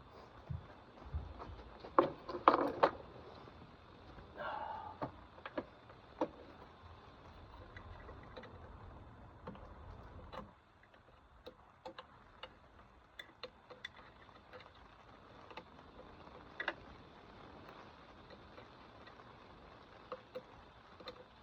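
Scattered metallic clicks and knocks of hand tools and parts being handled during work on the unit, with a louder clatter about two seconds in. A low background hum cuts off about ten seconds in.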